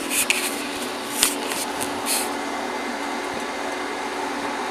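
Steady machine whir with a low hum, like cooling fans running. A few brief rustles and knocks come in the first two seconds.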